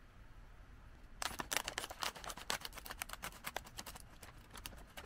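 Scissors cutting open a foil-lined potato chip bag: a quick, irregular run of crisp snips and crackles that starts about a second in and continues nearly to the end.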